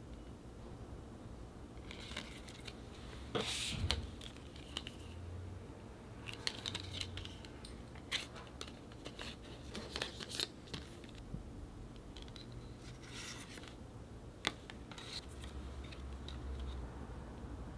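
Packaging and paper items being handled and opened: irregular rustles, scrapes and small clicks, with a louder scratchy rustle about three and a half seconds in.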